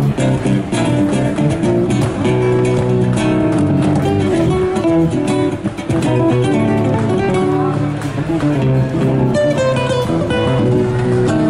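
Acoustic guitars played live together, quick runs of plucked notes over chords.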